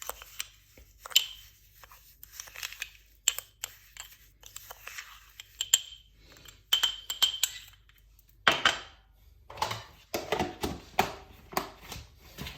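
A spoon stirring Vanish Oxi Action powder and olive oil into a thick paste, with irregular clinks and scrapes against the container. The clinks come thicker and louder in the last few seconds.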